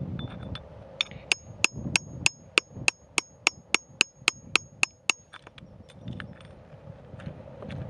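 Hammer striking a pointed steel chisel in a quick, even run of about fifteen blows, roughly three a second, each with a short metallic ring, chipping away rock around a crystal. The blows stop about five seconds in, leaving soft ticks and rustling of loose rock and grit.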